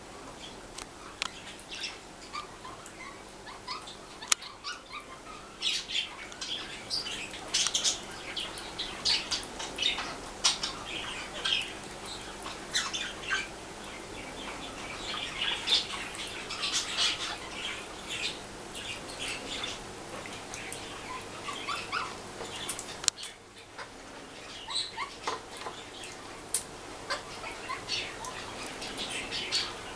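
A pet bird chirping and squawking in a rapid string of short, high calls while it bathes under a running shower, with a steady hiss of water behind it.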